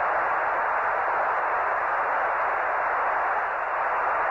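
Steady static hiss of an open Apollo 11 radio voice loop, even and unbroken, with the narrow, muffled tone of a communications channel.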